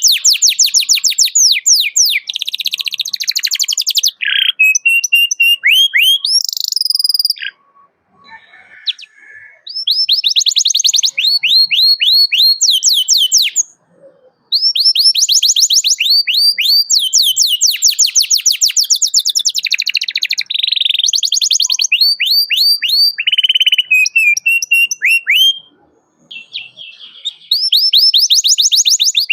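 Domestic canary singing: long, fast trills of repeated falling whistled notes, in phrases broken by short pauses.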